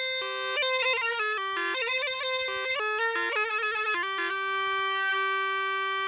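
Background music: a fast melody on a reedy wind instrument, its notes changing several times a second.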